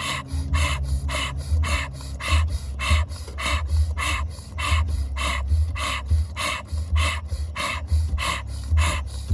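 Fast, hard rhythmic breathing, a breath of fire exercise, pumping in and out at about three strokes a second.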